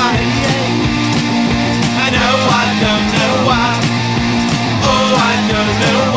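Loud rock music soundtrack with a steady beat.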